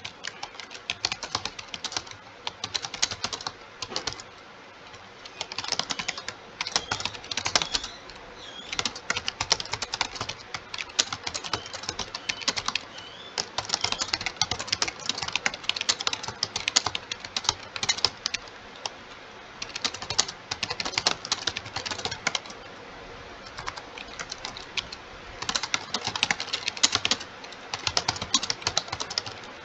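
Computer keyboard being typed on fast and continuously, rapid keystroke clicks coming in runs of a few seconds broken by brief pauses.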